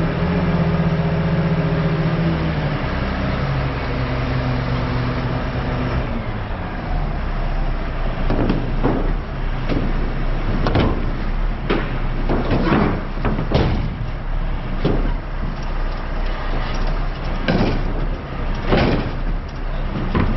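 A heavy truck engine running steadily, then from about eight seconds in a string of irregular knocks and bangs over the engine noise.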